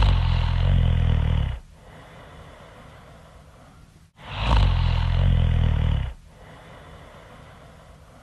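A woman snoring loudly in a slow, regular rhythm. Each long, buzzing inhale lasts about two seconds and is followed by a softer, breathy exhale. There are two snores, about four and a half seconds apart.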